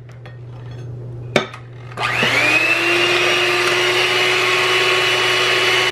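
Electric hand mixer switched on about two seconds in, its whine rising as the motor spins up and then running steadily as the beaters work an egg into creamed butter and sugar.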